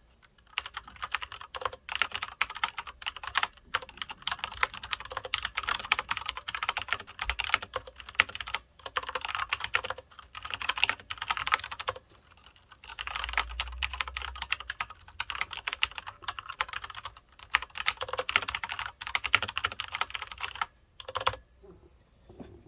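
Typing on a Filco Majestouch 2 mechanical keyboard with Cherry MX Brown switches: rapid runs of keystroke clacks broken by brief pauses, ending in a few last taps.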